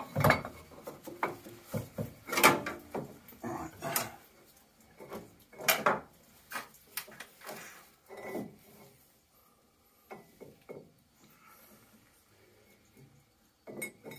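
Irregular knocks, clinks and scrapes of metal as a plate heat exchanger is worked into place against the pipework and frame inside a Worcester Greenstar combi boiler. They are busiest over the first half, then thin out to a few faint knocks.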